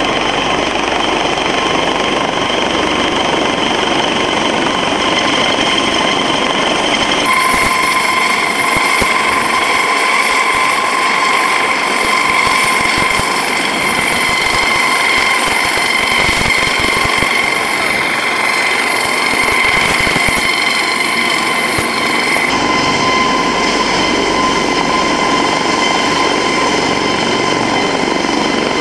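Rescue helicopter running close by: a steady turbine whine over the beat and rush of the rotor. The whine shifts about seven seconds in and again a little past twenty seconds.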